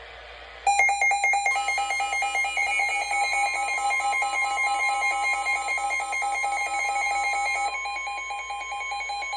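Weather alert radios sounding an emergency alert. Rapid, shrill electronic beeping at several pitches starts about a second in. Soon after, the steady, single-pitched NOAA warning alarm tone joins, and part of the beeping stops near the end.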